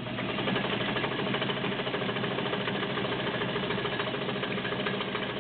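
Vintage White Super Deluxe all-metal zigzag sewing machine running steadily at a fast, even speed, its needle and feed chattering rapidly while it sews test stitches.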